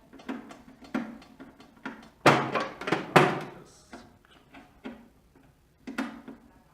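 Clicks and knocks from screws, a screwdriver and the plastic side cap of a cutting plotter being handled and fitted, with two louder thunks about two and three seconds in.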